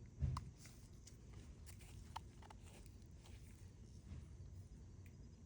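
Faint handling noise: a low thump just after the start, then a few light clicks, over a low steady room rumble.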